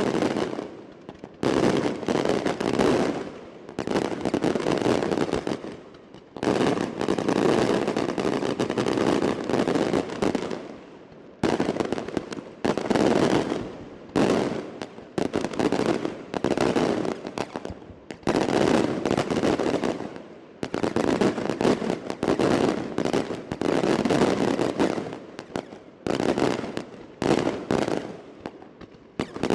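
Daylight fireworks battery: many small aerial shells bursting overhead in rapid crackling volleys of bangs, coming in waves a second or two long with brief lulls between.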